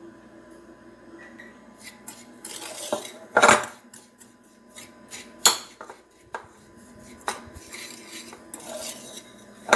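Metal spoon clinking and scraping against a glass mixing bowl while stirring flour, in irregular strokes with a few sharper clinks, the loudest about three and a half seconds in.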